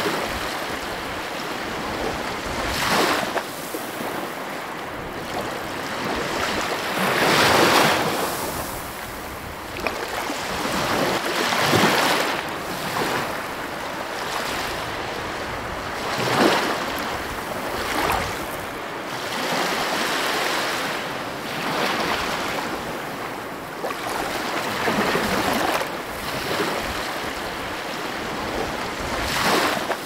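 Sea waves breaking and washing in close by, a rushing hiss that swells and fades with each wave every few seconds.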